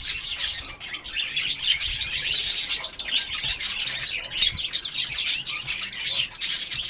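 A flock of small cage birds, goldfinches and parrots, chirping and chattering all at once: a dense, unbroken twittering of many overlapping high calls.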